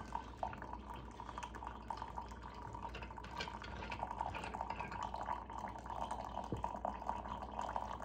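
Coffee trickling and dripping in a Belgian balance siphon coffee maker as the pressure in its brass boiler is released and its tap opened: a faint, continuous liquid trickle with many small clicks.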